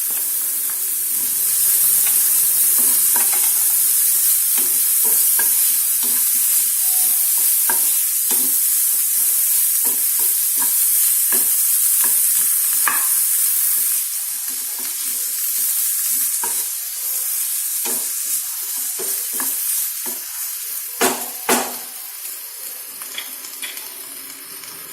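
Capsicum and onion sizzling in coconut oil in a frying pan as they are stirred, with short scrapes and clicks from the stirring. The sizzle eases about two-thirds of the way through, and two louder knocks come near the end.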